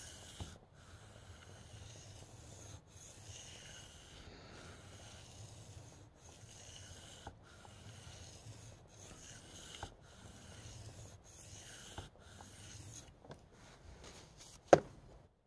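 Steel knife blade, a Spyderco PM2 Wharncliffe, being drawn across a wet whetstone in freehand sharpening: a soft, even scraping in repeated strokes, each a second or two long with short breaks between. A sharp click near the end.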